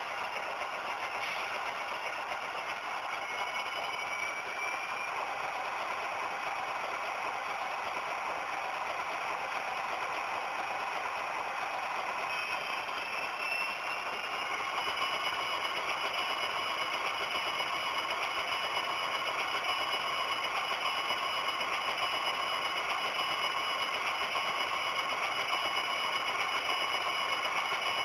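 Model BNSF GE AC6000CW diesel locomotive running slowly along the track, a steady engine-like drone with a light rattle. A faint whine rises in pitch about three seconds in and again around thirteen seconds in, and the sound grows slightly louder from there on.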